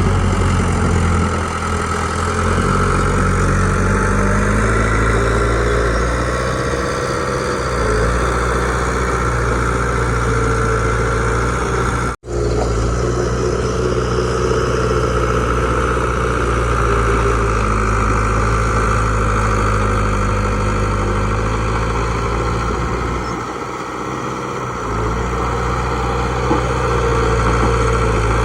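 Heavy diesel engines of earthmoving machinery, a bulldozer and a small dump truck, running and working under changing load, the note easing and picking up again every few seconds. The sound cuts out for an instant about twelve seconds in.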